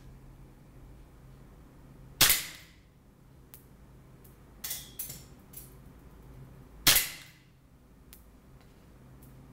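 Tokyo Marui Sentinel Nine gas blowback airsoft pistol, a SIG P226 custom, firing two slow, aimed single shots about four and a half seconds apart, each a sharp crack. A few much fainter ticks fall between the shots.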